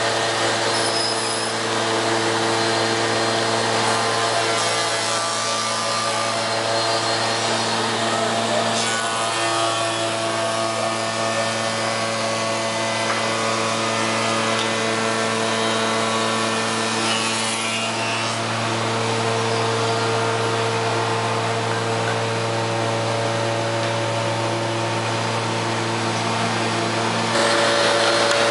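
Soukup Crafter window machining centre cutting a timber window part: a rasping wood-cutting noise over the steady hum of the machine's motors.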